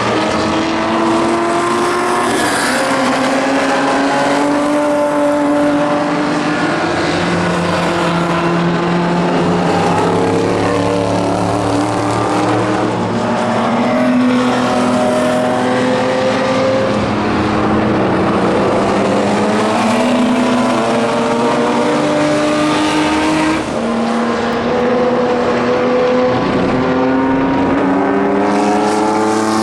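Several historic racing car engines running hard at once and overlapping continuously. Their pitch climbs under acceleration and drops back at each gear change as the cars pass.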